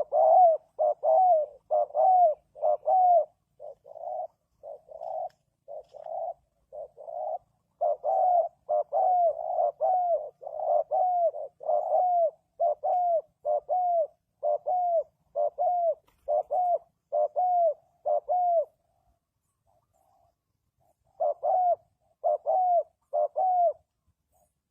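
Spotted dove cooing: a long series of short coo notes, each with a falling tail, about two a second. The notes go softer for a few seconds, break off after about eighteen seconds, and come back as four more notes near the end.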